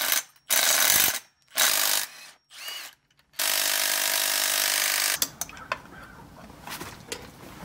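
A power tool runs in three loud short bursts and a weaker fourth, then in one longer run of almost two seconds, undoing the fasteners of an engine's oil filter housing.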